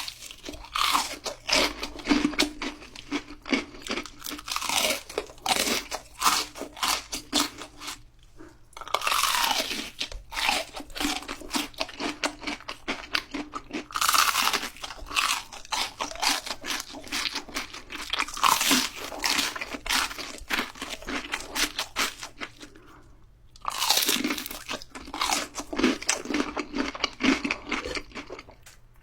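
Close-miked crunching and chewing of fried shrimp with a crisp batter coating, in runs of rapid bites and chews with short pauses between mouthfuls.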